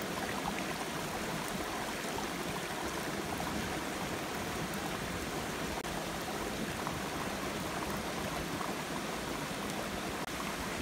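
Steady rushing of a shallow stream flowing over rocks, with a very brief dropout a little after halfway.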